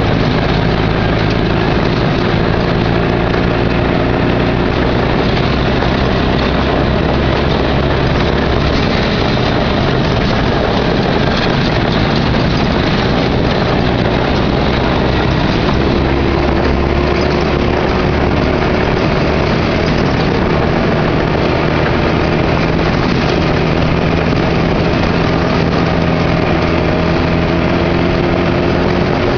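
Off-road vehicle's engine running under way on a rough dirt trail, heard from inside the cab over road and rattle noise. The engine note shifts a few times as speed changes, rising slightly near the end.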